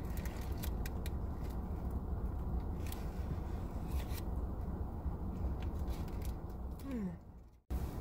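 Close-up chewing of a burger with crackly clicks of the paper wrapper, over a steady low rumble. Near the end the sound drops away to silence for a moment.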